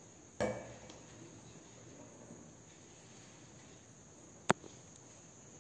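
Quiet room with a faint steady high-pitched background whine. A metal spoon knocks against a small glass bowl about half a second in, and a sharp click comes near the end.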